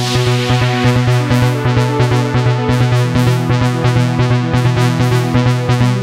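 Electronic background music: sustained chords over a fast, steady beat.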